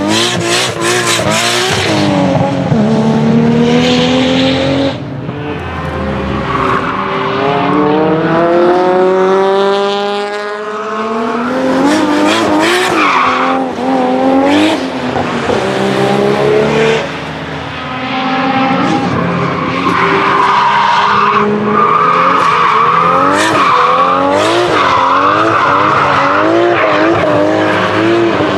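Nissan Skyline GT-R R32 N1 Nismo's single-turbo RB26DETT straight-six revving hard, its pitch climbing and dropping back again and again through gear changes and throttle lifts as the car powerslides. Tyres squeal, steadiest from about two thirds of the way through.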